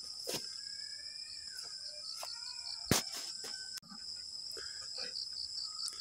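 Steady high-pitched drone of crickets or similar insects, pulsing in places. A few short knocks come through, the loudest about three seconds in.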